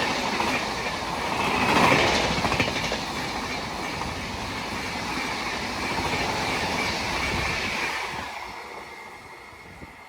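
A passing train's wheels running over the rails, a dense clatter that is loudest about two seconds in and fades away near the end as the train moves off.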